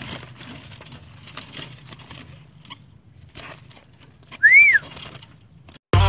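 A single short whistle, about four and a half seconds in, that rises and then falls in pitch. It plays over faint rustling, light clicks and a low hum.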